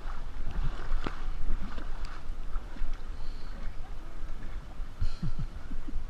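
Water lapping and sloshing against an inflatable river tube, with a low rumble of wind on the microphone and scattered small splashes and knocks.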